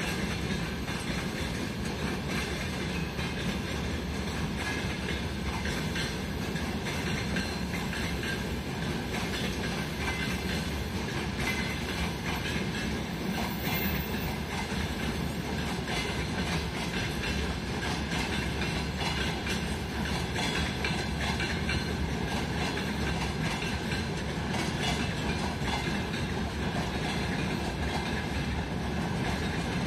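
Freight train of open gondola wagons rolling steadily past, its wheels clacking over the rail joints.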